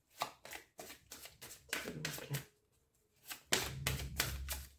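A deck of oracle cards being shuffled by hand: quick runs of card slaps and flutters, with a short pause a little past halfway. The last second is louder, with a low rumble under the shuffling.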